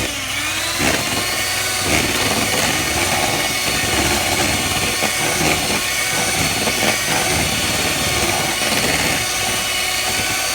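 Electric mixer running steadily as it beats flour into a thick batter, its motor pitch settling in the first second, with light clattering from the beaters.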